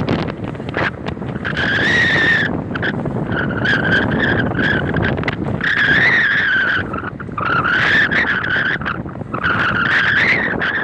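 High, wavering squeal from a moving car, coming in five stretches of about one to two seconds each over steady road noise.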